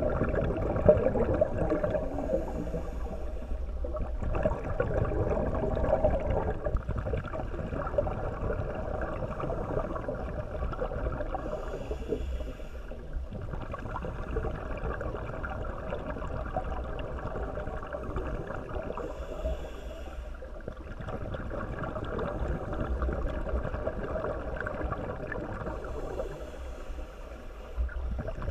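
Muffled underwater sound heard through a GoPro's waterproof housing: a steady low rushing of water, broken about every seven to nine seconds by a brief quieter dip with a faint hiss.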